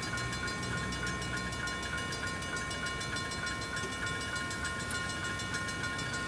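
Level-crossing warning bell ringing in a steady repeated pattern while the crossing is closed, over a low rumble of traffic or an approaching train.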